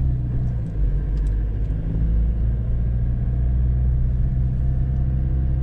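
Car engine and road noise heard from inside a moving car: a steady low hum.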